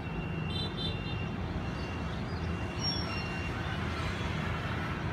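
Steady low rumble of distant city traffic, with a few faint high chirps about half a second in.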